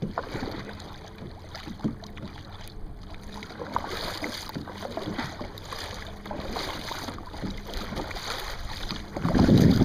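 Kayak paddling: water splashing and lapping at the paddle and hull, with scattered small knocks. Near the end, wind buffets the microphone with a loud low rumble.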